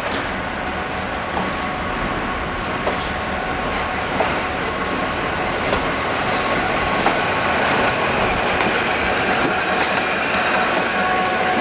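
Conrail diesel freight locomotives running past at close range, with steady engine noise and scattered clicks from the wheels on the rails, growing a little louder as they draw level.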